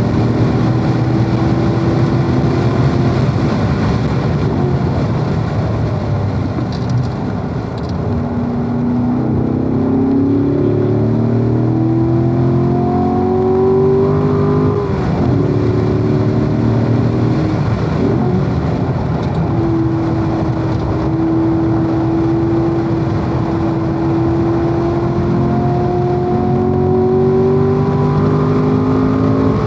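Corvette V8 under hard acceleration at racing speed, its note climbing through the gears. There are two quick gear changes about halfway through, then a long pull held at high revs.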